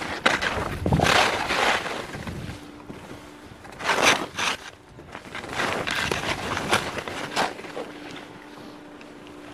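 Skis hissing and scraping across snow through a series of turns, the noise surging with each turn. The loudest surges come about a second in and again about four seconds in.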